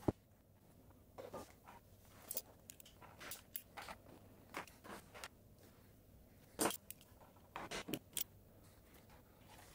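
Quiet, scattered clicks and rustles of small handling work: needle-nose pliers and clear plastic tubing being worked onto brass barbed fittings. The sharpest clicks come about two thirds of the way in and again a second later.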